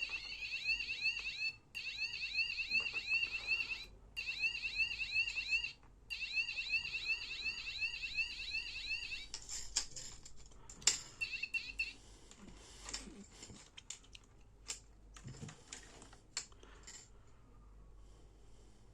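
Electronic bike horn sounding a high, quickly repeating chirping warble in four bursts with short breaks, cut off about nine seconds in. After that come scattered clicks and one brief burst of the horn.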